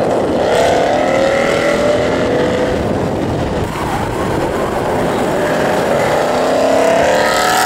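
Ford Mustang GT's 5.0-litre V8 through a Borla ATAK exhaust, driving past loud. Its pitch falls over the first couple of seconds, then climbs again near the end as it accelerates.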